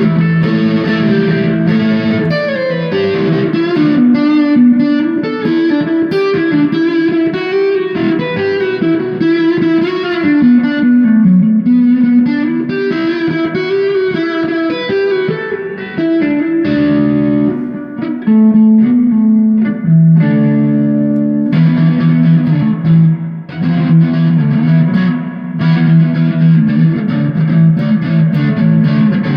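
Electric guitar played solo through distortion, a wandering lead line of quick single notes moving up and down in pitch, with short pauses about two thirds of the way in.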